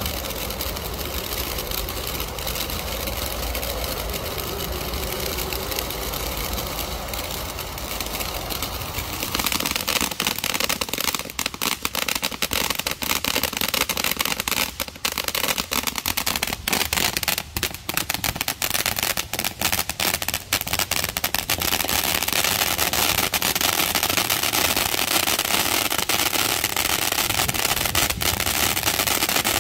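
A firework burning with a steady hiss. About nine seconds in, dense rapid crackling breaks out and keeps going.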